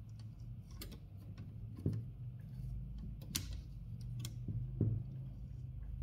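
Small metallic clicks from the margin stops of a 1927 Remington 12 typewriter being handled and slid along the margin rack, about half a dozen at irregular intervals, over a faint low hum.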